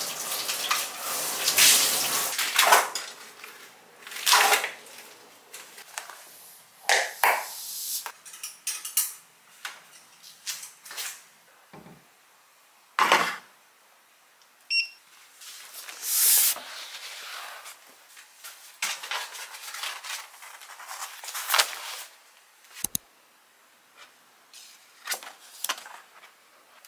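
Dishes being washed at a kitchen sink: running tap water and clattering dishware for the first few seconds, then a string of separate short clinks, knocks and rustles of things being handled, with one sharp knock near the end.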